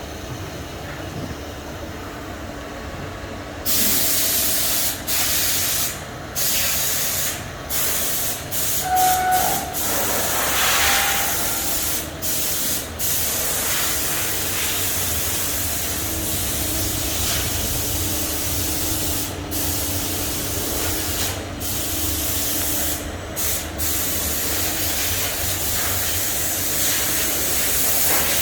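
Mazak Integrex 200-IV ST CNC lathe running, with a low machine hum at first. About four seconds in, a loud hissing spray starts inside the machine and breaks off briefly again and again.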